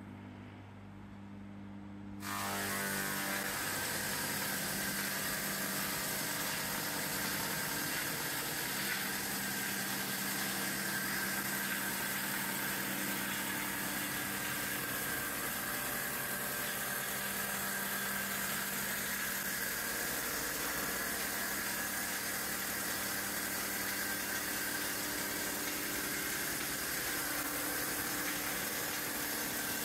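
Woodlandia LL-41.600 log lathe: a low electric hum, then about two seconds in its milling motors come on with a sudden rise to a loud, steady whir and rushing noise as the cutters mill the Swedish cope groove and lengthwise kerf cut along the log.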